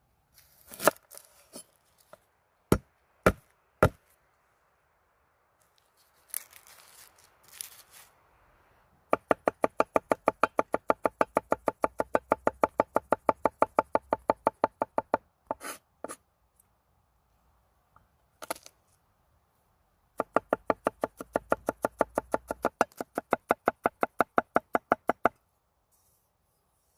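Knife chopping food on a wooden cutting board. It starts with a few single cuts, then two runs of fast, even chops at about six a second, each run lasting five to six seconds.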